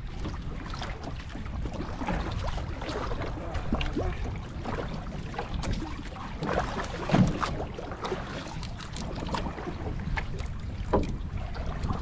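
Small boat rocking in rough water: a steady low rumble of wind and water against the hull, with scattered knocks and a louder thump about seven seconds in.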